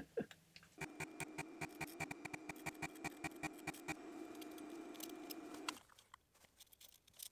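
A small electric motor hums steadily for about five seconds, starting and stopping abruptly, over a run of quick clicks and taps.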